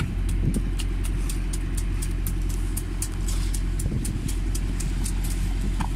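A large curved blade scraping the scales off a great barracuda in quick, sharp strokes, about four a second, over the steady drone of a boat engine running.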